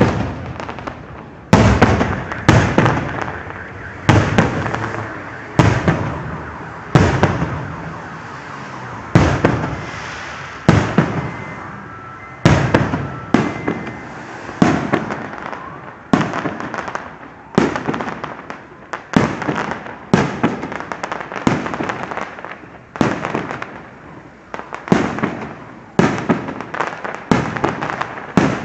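Fireworks display: loud bursts going off one after another, about one every second, each dying away with a rumbling tail before the next.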